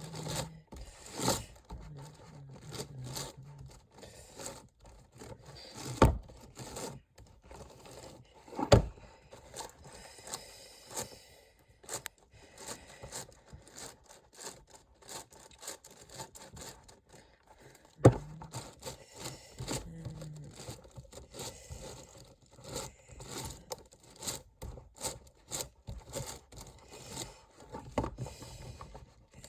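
Layers of a 29x29 Rubik's cube being turned by hand: a steady run of irregular plastic clicks and scrapes as the slices move, with a few louder knocks about 6, 9 and 18 seconds in.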